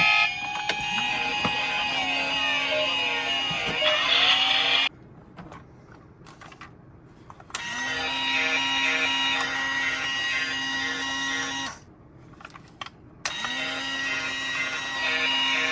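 A small electric motor whirring with a steady pitch, heard three times for a few seconds each. Each run rises in pitch briefly as it starts and stops cleanly, with quieter gaps between. Some sliding tones are heard in the first few seconds.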